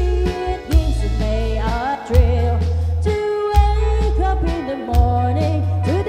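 Live band playing a waltz: an electric bass holding long low notes, drum kit hits and keyboard under a gliding melody line.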